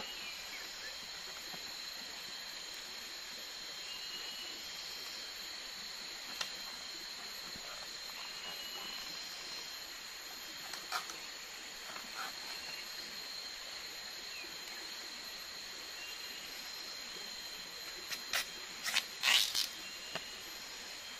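Steady high insect drone of the forest, with a few short chirps. Over it come occasional sharp cracks and tearing from a green palm shoot being peeled, a quick cluster of them loudest near the end.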